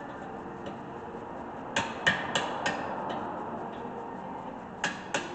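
Sharp metallic knocks of a hand tool working on a rear brake caliper bolt: four quick knocks about a third of a second apart, starting about two seconds in, and two more near the end.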